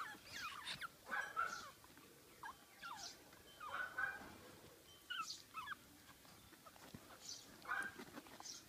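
Month-old Pomeranian puppy squealing in short, high-pitched whines, about six of them with brief pauses in between.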